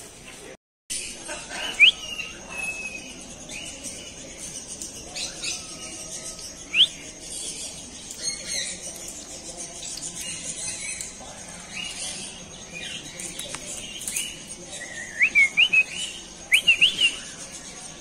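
Parrots in an aviary giving short, sharp rising chirps and squeaks, scattered at first and then coming in a quick cluster near the end.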